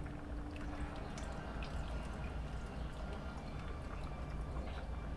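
Cornstarch slurry being poured into a pot of gravy and stirred in, with liquid sloshing and faint clicks of the spoon against the pot, over a steady low hum.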